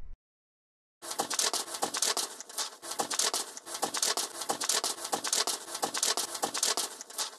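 Applause: dense, irregular clapping that starts suddenly about a second in and cuts off abruptly near the end.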